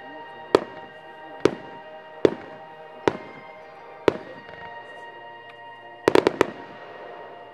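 Distant fireworks aerial shells bursting with sharp bangs about once a second, then a quick volley of four near the end. Steady background music plays underneath.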